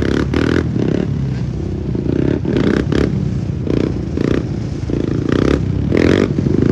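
Several sport ATV and dirt bike engines running together, with repeated short revs as the riders blip the throttles.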